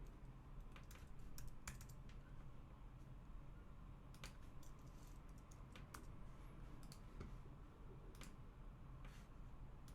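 Faint, irregular clicks of a computer keyboard and mouse being used, over a low steady hum.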